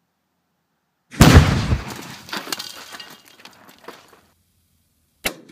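A tannerite charge packed in a drum kit detonating: one loud blast about a second in, followed by a few seconds of drum shells and metal hardware clattering and rattling as debris comes down. A single sharp crack near the end.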